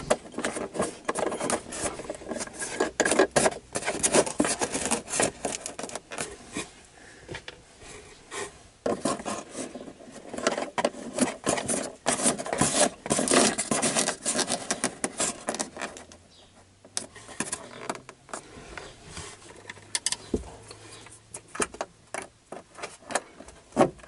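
Hands rubbing and scraping against the wooden cupboard panel while fitting washers onto the backs of 12-volt accessory sockets, with many irregular clicks. It goes quieter for a couple of seconds past the middle, then picks up again.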